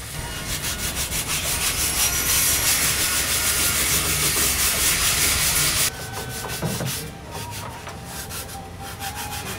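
Wood being sanded: a dense, steady hiss that cuts off suddenly about six seconds in, followed by quieter, evenly repeated rubbing strokes.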